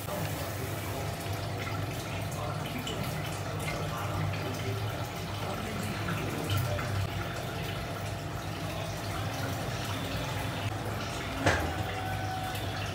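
Soft wet plops and small scrapes as creamy food is spooned into a glass mixing bowl, over a steady low hum. Near the end a spoon clinks once against the glass bowl and rings briefly.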